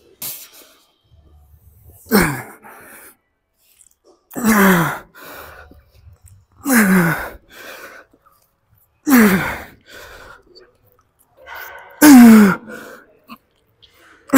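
A man grunting loudly with effort on each rep of a heavy one-arm seated cable row: five strained grunts about two and a half seconds apart, each dropping in pitch, with a quick breath after each, and a sixth grunt starting right at the end.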